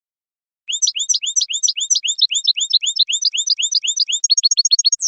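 European goldfinch singing: a rapid series of high rising chirps, about five a second, quickening into a faster trill near the end.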